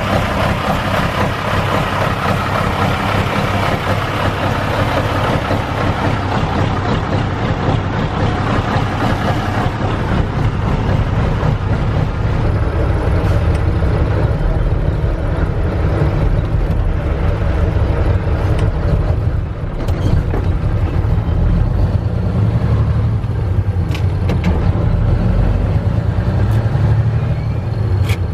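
Mack R-series truck's diesel engine running steadily at rest, heard first from beside the truck and then from inside the cab. A few light clicks come in the second half.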